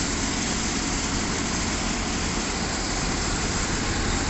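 Engine of a crawler-mounted piling rig idling steadily, with a low even hum and no hammer blows.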